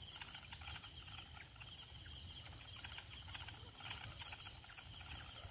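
Night insects, crickets among them, chirring in a faint, dense chorus of rapid high pulses over a steady low rumble.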